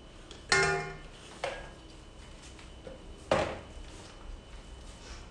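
Kitchen utensils knocking against containers while cream is scraped into a piping bag. The first is a ringing clink about half a second in and is the loudest. A lighter knock follows about a second later, and another comes a little past three seconds.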